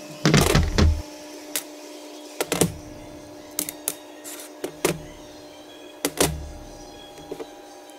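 Small steel knurling-tool parts, knurl wheels and screws, being handled and set down on a plastic tray: irregular clinks and clatters, the loudest with a dull thump, over a steady low hum.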